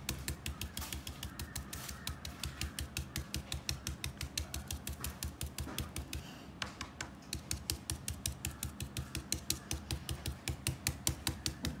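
A stencil brush dry-brushing white chalk paint through a plastic stencil onto a coaster: quick repeated strokes, about five a second, each giving a short dry tap, with a brief pause a little past the middle.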